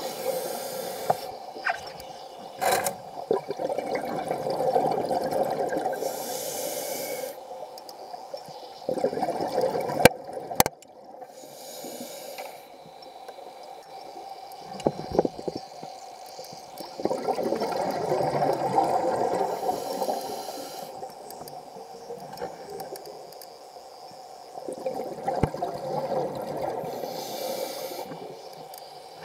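Scuba diver breathing through a regulator underwater: long bubbling exhalations, each followed by a short hiss of inhalation, about four breaths. Two sharp clicks about ten seconds in.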